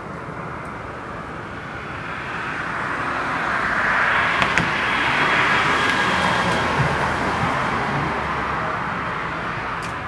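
A passing vehicle: its noise swells to a peak about four to six seconds in, then fades away.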